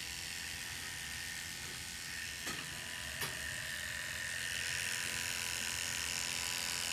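Electric hair clippers running steadily as they shave the scalp's donor region short, with a couple of light clicks about halfway through; the buzz grows slightly louder toward the end.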